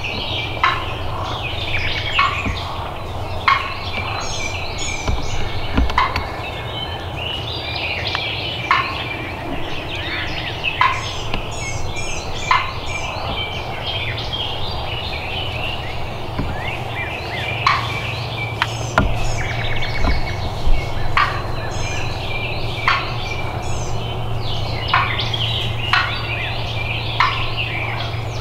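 Wild turkeys gobbling and calling over and over, a sharp call every second or two.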